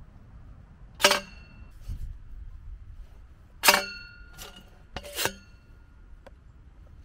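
Steel jaw plate and levers of a Pottiputki transplanting tube clanking as the tool is worked: sharp metallic clanks with a short ring, one about a second in, one near the middle, and a quick double clank about five seconds in.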